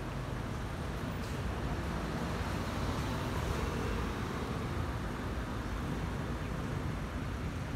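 Airbus A320-200 airliner's CFM56 turbofan engines, a steady broad rumble from high overhead that swells slightly about halfway through.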